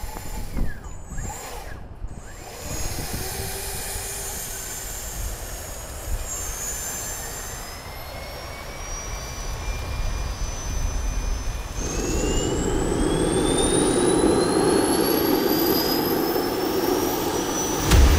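Aero L-39 Albatros jet's Ivchenko AI-25TL turbofan heard from the cockpit, spooling up for takeoff: its whine rises steadily in pitch. About two-thirds of the way through, a rush of engine and air noise grows louder, and at the very end it jumps to a deeper, louder rumble.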